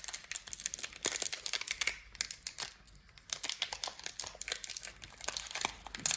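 Foil wrapper of a Pokémon card booster pack crinkling and crackling in hands as it is worked at to be torn open, in bursts with a short lull around the middle.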